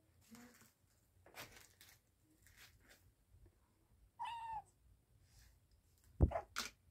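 Grey tabby kitten meowing once, a short call about four seconds in, between faint scuffling and scratching sounds. A sharp knock near the end is the loudest sound, followed by another brief scrape.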